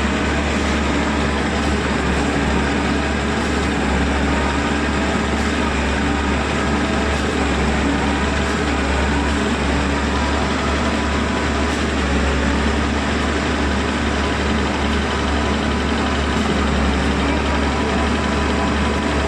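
Heavy diesel construction machinery running steadily at a concrete piling job, with a constant low hum under the engine noise.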